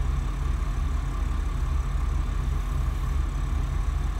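Motor yacht's twin diesel engines idling steadily, a low rumble.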